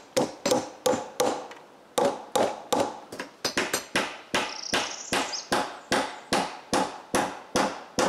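Hammer driving duplex nails into the boards of a wooden concrete form, steady sharp blows about three a second with a short ring after each.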